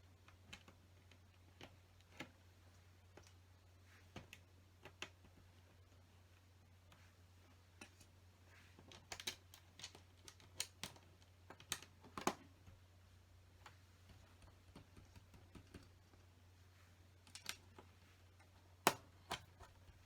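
Small plastic LEGO pieces clicking and tapping as they are handled, set down and pressed into place: scattered light clicks, some in quick little clusters, over a faint steady low hum.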